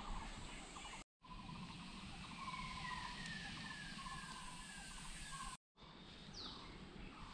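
Faint jungle ambience with a bird calling a series of about five short whistled notes, each stepping slightly lower than the last, then a single quick falling note. The sound drops out completely for a moment twice.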